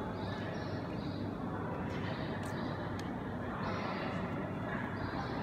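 Steady ambience of a railway platform under a train-shed roof: the even hum and hiss of a standing passenger train and the hall around it, with a couple of faint clicks about halfway through.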